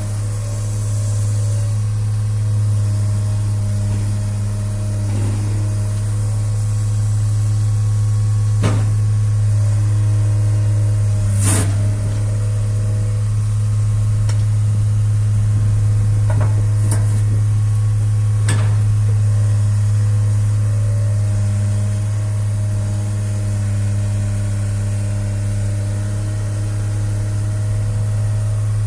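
Diesel engine of a 2007 Atlas-Terex TW160 wheeled excavator running at a steady speed with a constant low drone, and a few sharp metallic knocks scattered through it.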